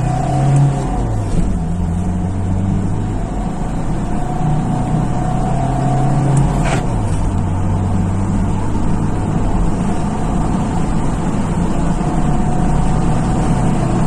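Chrysler Voyager's diesel engine accelerating hard from low speed, heard from inside the cabin, with an add-on power-boost box connected. Its pitch drops at upshifts, about a second in and again about halfway through.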